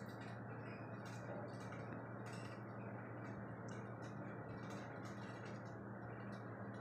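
Freezer frost crackling softly as fingers squeeze and handle it in a plastic bowl: quick, irregular little crunchy clicks, several a second, over a steady low hum.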